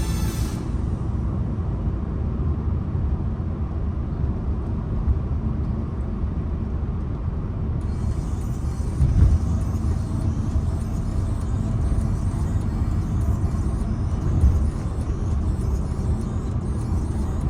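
Steady low rumble of a 2011 Renault Samsung New SM3 driving along, road and engine noise, with two brief louder thumps about nine and fourteen seconds in.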